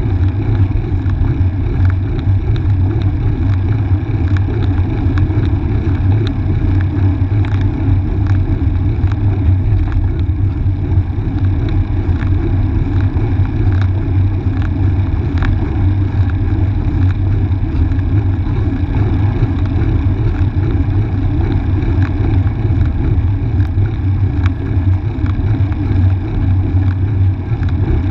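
Steady low rumble of wind buffeting and road vibration on the microphone of an action camera riding along on a bicycle, with faint clicks scattered throughout.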